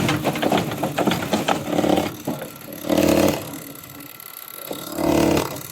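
Diesel injector being run on an injector tester: rapid clicking, then several separate buzzing bursts.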